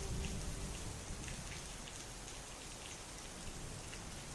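Steady rain falling, an even hiss with scattered drop ticks. The last faint notes of the music fade out in the first half second.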